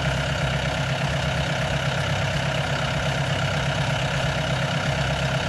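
John Deere tractor engine running steadily with a fast, even pulse, towing a water-wheel transplanter.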